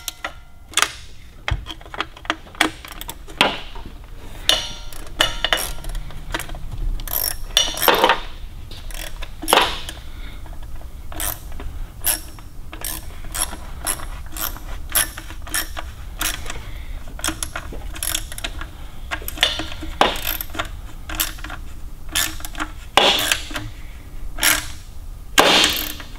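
Small hand ratchet clicking in irregular runs with metal clinks, as the cover screws on a GM HEI distributor cap are driven in after a coil change. A few louder snaps come near the end.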